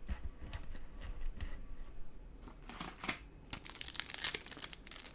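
Plastic wrapper of a Topps baseball trading-card pack crinkling and tearing as the pack is opened, in scattered crackles that grow denser in the second half.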